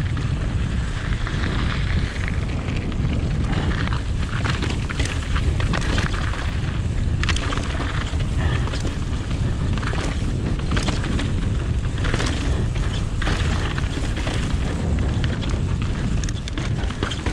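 Mountain bike descending a rocky trail over gravel and granite slabs, heard from a chest-mounted camera. Steady wind rumble on the microphone runs under tyre crunch and frequent knocks and rattles from the bike over the bumps.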